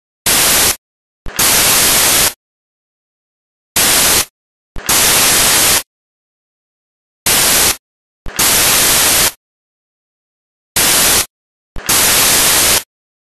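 Loud bursts of electronic static hiss, switched abruptly on and off in a repeating pattern: a short burst of about half a second, then a longer one of about a second, four times over, with dead silence between.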